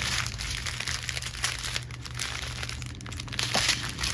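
Clear plastic bags crinkling as they are handled: small bags of diamond-painting drills rubbed against a canvas wrapped in plastic film, in an irregular rustle that eases off midway and picks up again near the end.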